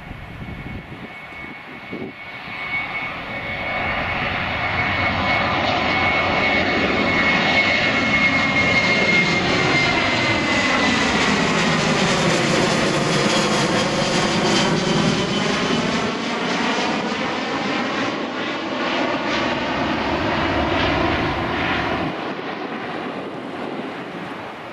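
Boeing 737 airliner's twin turbofan engines at climb-out power just after takeoff, building up, passing close overhead and then receding. A high fan whine drops in pitch as the jet goes by, under a loud, rushing jet noise that slowly fades near the end.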